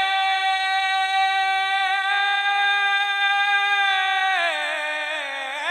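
Male naat reciter singing, unaccompanied, holding one long high note for about four seconds, then descending in a wavering, ornamented run near the end.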